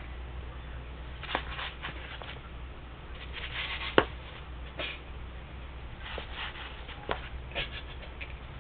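Chinchilla rolling and scrabbling in a cardboard tray of bathing dust: scattered short scratchy rustles of fur and dust against the cardboard, with one sharp click about four seconds in, the loudest sound.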